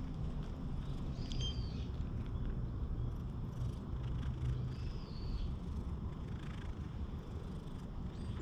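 Tortoiseshell cat purring, a steady low rumble, in response to being stroked and patted on the lower back. Two brief high chirps cut in, about a second in and again about five seconds in.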